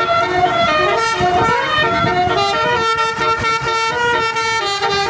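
Bus 'telolet' horn: a set of musical air horns playing a tune, several tones sounding together and stepping from note to note every fraction of a second.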